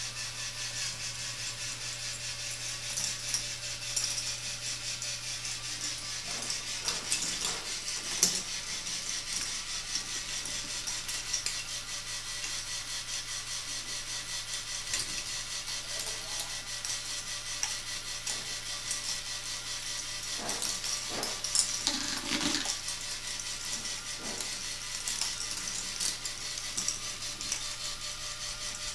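K'nex ball machine running: small balls clicking and rattling along the plastic tracks and lifts over a steady low hum, with a few louder clacks about eight seconds in and again around twenty-two seconds in.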